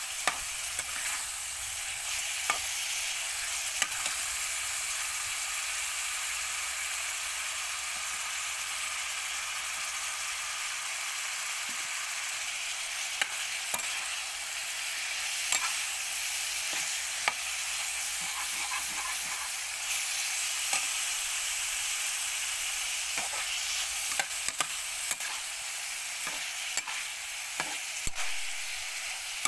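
Shrimp, carrots and yard-long beans sizzling in oil in a frying pan, with a steady frying hiss, while a metal spatula stirs them, scraping and tapping the pan now and then in sharp clicks.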